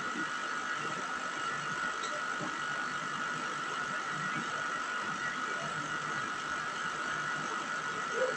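A steady machine whir that holds one constant pitch and level, with a few faint soft knocks over it.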